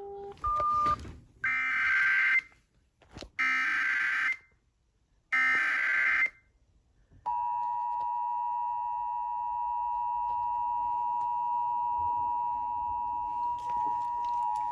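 Emergency Alert System header: after a short beep, three short bursts of SAME digital data tones sound, about a second apart. They are followed by the steady two-tone EAS attention signal, held for about seven seconds. Together they announce that a new alert message is about to be broadcast.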